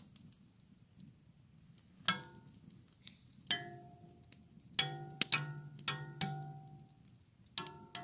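Something is struck about eight times, each strike ringing on with the same set of pitched tones like a bell or a plucked note, with several strikes in quick succession through the middle. Under it a wood fire crackles faintly.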